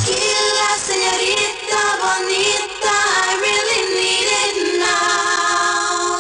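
Recorded music from a transferred cassette mix: after the bass and drums drop out at the start, held synthesizer-like chords carry a wavering, sung-sounding melody.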